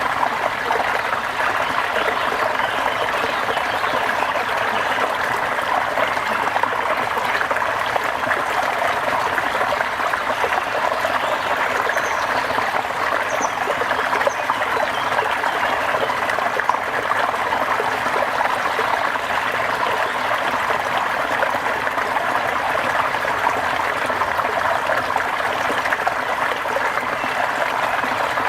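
Steady rain falling, a dense even hiss of drops with no let-up.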